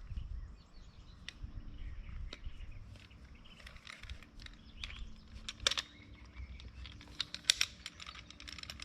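Scattered light clicks and taps of a metal hose clamp being worked onto a lay-flat hose, the sharpest ones about two-thirds of the way through, with birds chirping in the background.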